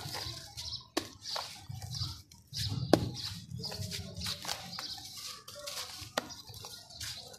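Hands crumbling dry sand-cement lumps, with gritty crunching and grit pattering down into a tub of shallow water. A few sharp clicks of pieces knocking come through, the loudest about three seconds in.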